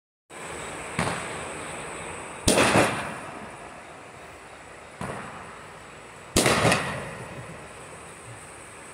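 Aerial fireworks going off: four sharp bangs spread across the few seconds, the second and fourth loudest, each followed by a quick run of cracks that trails away.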